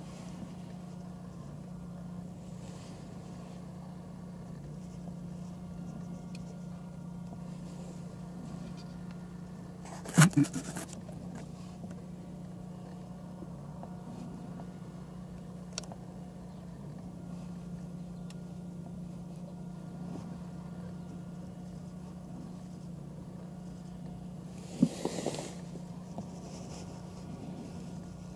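Steady low hum with a few sharp handling knocks on a spotting scope and camera rig: a loud one about ten seconds in, a small tick near sixteen seconds, and another knock with a brief rustle near twenty-five seconds as the scope is moved.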